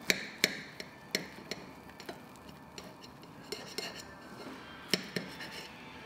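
Fork and knife cutting French toast on a plate, with about ten irregular clinks of the metal cutlery striking the plate.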